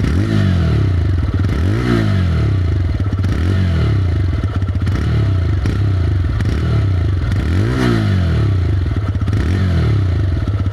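TVS Raider's single-cylinder motorcycle engine revved in neutral: a series of short throttle blips, about one every second and a half, each rising and falling back toward idle, with the highest revs about three-quarters of the way through.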